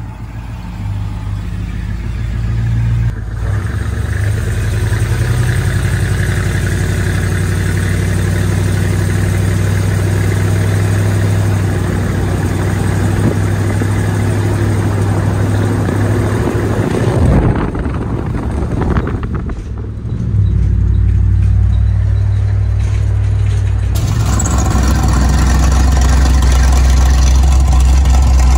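Exhaust of a 302 V8 crate engine with long-tube headers and dual exhaust, running as the truck drives. There is a brief rev rising in pitch about two-thirds of the way through, and a steady low running sound near the end.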